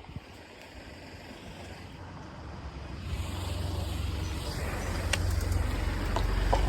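A road vehicle approaching, its engine and tyre noise growing steadily louder from about halfway through, over a low rumble.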